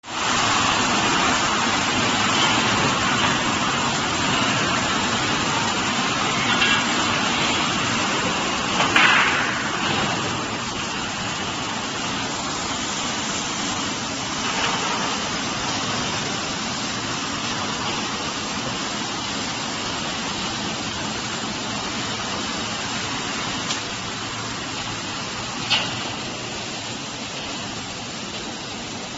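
Steady machinery noise of a steel coil processing line running, with steel strip unwinding off a hydraulic decoiler and feeding through a roller leveler. A couple of brief sharp clanks come through, one about nine seconds in and one near the end.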